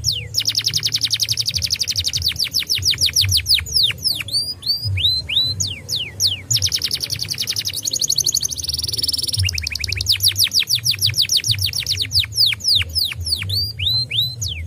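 Domestic canary singing: long fast rolls of rapidly repeated notes, broken by slower runs of downward-sweeping whistles and a short buzzy phrase about two-thirds of the way through. A low hum runs underneath.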